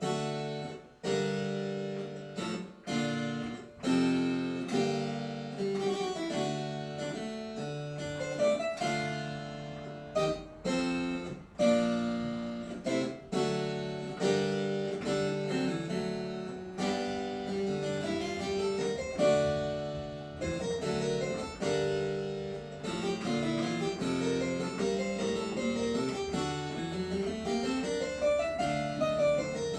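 A virginal, a small plucked-string keyboard of the harpsichord family, playing a Renaissance galliard. The chords and notes are crisply plucked and fade quickly, and in the last third there are quick runs of notes going up and down.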